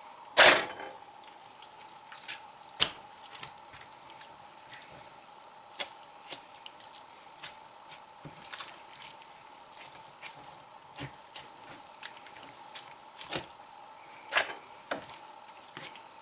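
Small Byrd Finch knife cutting up a raw chicken: wet squishing of flesh with scattered sharp clicks and knocks, the loudest about half a second in, over a faint steady hum.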